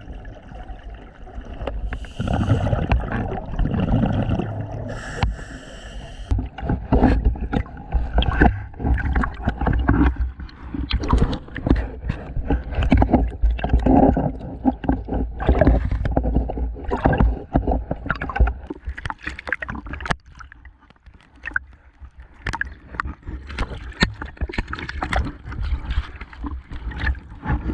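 Scuba diver's breathing heard through an underwater camera: two hissing breaths through the regulator in the first few seconds, then a long stretch of irregular clicks, knocks and gurgling bubbles.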